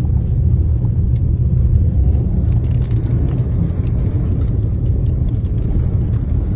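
Storm wind buffeting the microphone: a steady low rumble, with a few faint ticks.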